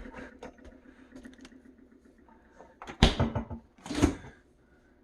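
Food containers being handled and set down while a fridge is unloaded: a few light clicks, then two louder knocks about three and four seconds in.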